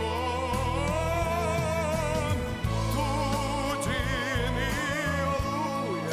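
Song performance: sung vocals holding long notes with vibrato over band accompaniment, with several voices singing together.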